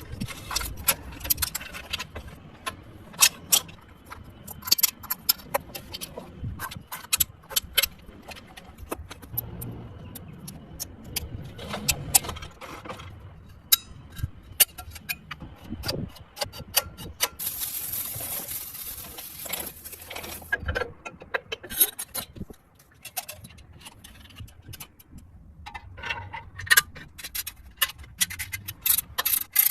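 Workshop handling noise: many sharp metallic clicks and clinks of tools and parts being handled, with a hiss lasting about three seconds past the middle.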